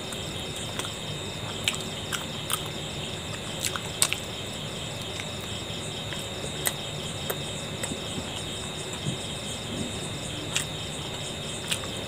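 Crickets trilling steadily in a high, finely pulsing chorus, with scattered short clicks and smacks of someone chewing a mouthful of momos.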